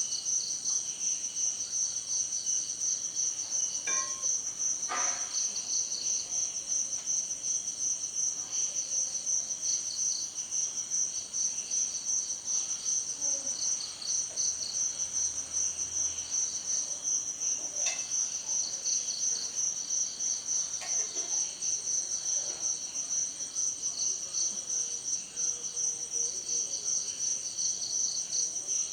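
A chorus of crickets chirping continuously: a dense, fast-pulsing high trill, with a second, slightly lower chirp coming and going over it. A few faint ticks are heard here and there.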